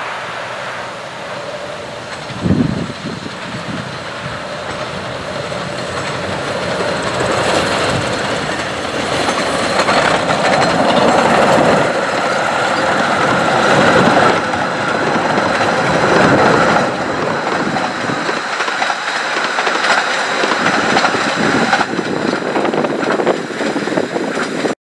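Miniature-gauge steam locomotive, Whillan Beck, drawing its coaches past. It works its way closer and gets louder toward the middle, with the wheels and coaches rattling over the track. A short thump sounds about two and a half seconds in.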